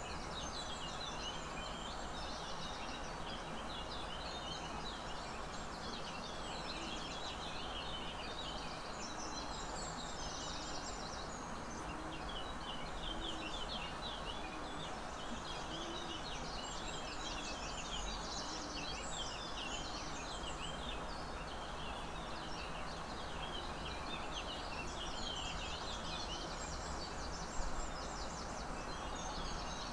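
Many small birds chirping and twittering continuously over a steady background hiss, with one short knock near the end.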